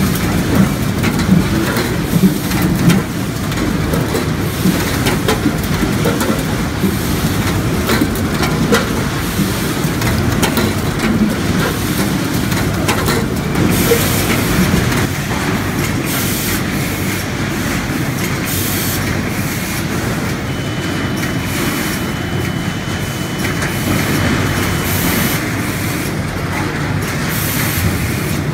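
Onion weighing and net-clipping line running: red onions tumbling through the stainless-steel buckets and gates of an AFFELDT AVN 112 weigher, with a steady mechanical clatter and rumble. From about halfway, short bursts of hiss come in, and later a thin steady whine lasts a few seconds.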